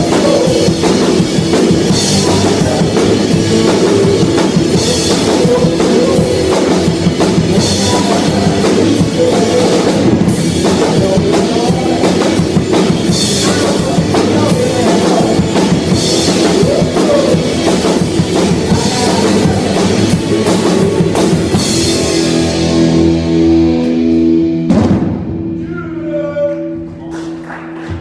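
Rock band playing live on stage: drum kit with cymbals, electric guitar and bass, loud and steady. About 25 seconds in the band stops on a last hit and held notes ring on, fading.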